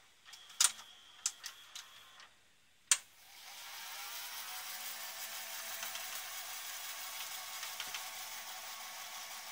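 A few light plastic clicks and taps as the Sony VCR's front panel is handled and fitted, ending in a sharp click about three seconds in. After that a steady whirring hiss with a faint low hum continues.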